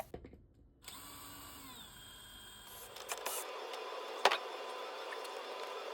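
A power tool running steadily as it cuts into drywall, with one sharp click about four seconds in.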